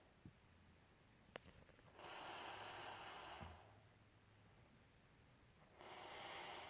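A sleeping person snoring faintly: two long, noisy breaths about four seconds apart, with quiet between them.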